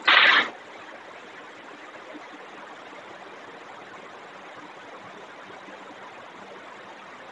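Steady, even hiss of room noise. A short, loud burst of noise about half a second long comes at the very start.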